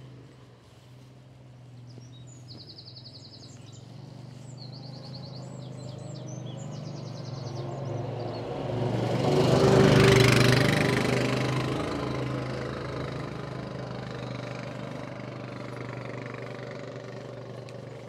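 Quad bike (ATV) engine humming as it comes along the road, growing louder to a peak about ten seconds in as it passes close, then fading away. Birds chirp in the first half.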